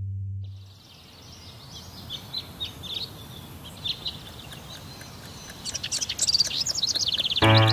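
Birds chirping and singing over a faint hiss, the calls growing busier and more trilling toward the end. A held musical note fades out at the start, and music comes in just before the end.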